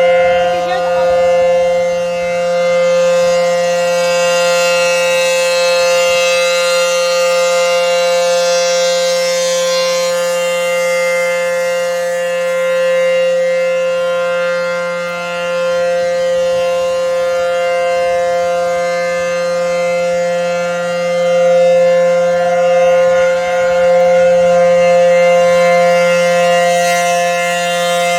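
ACA Howler outdoor warning siren sounding its full-alert signal: one continuous steady tone, its pitch holding level throughout, with the loudness swelling and easing slowly.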